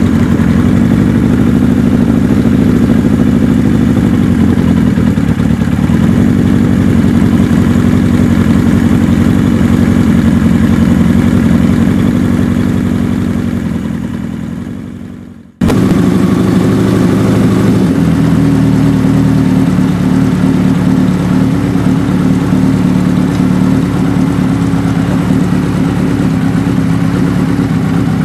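Suzuki GS550 motorcycle's air-cooled inline-four engine running steadily. About halfway through the sound fades away, then cuts straight back in with the engine running steadily again.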